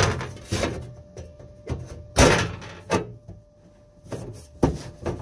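Sheet-metal kick panel knocking and clunking against the car body as it is pushed and fitted into place: a string of separate hard knocks, the loudest a little past two seconds in.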